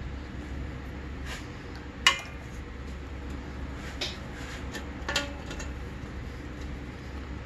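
Steel exhaust springs clinking against the exhaust pipe's hooks as they are stretched and hooked on with a spring-puller tool: a few sharp metallic clicks, the loudest and most ringing about two seconds in.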